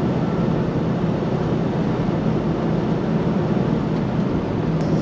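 Semi-truck cruising at highway speed, heard from inside the cab: a steady low engine drone mixed with tyre and road noise.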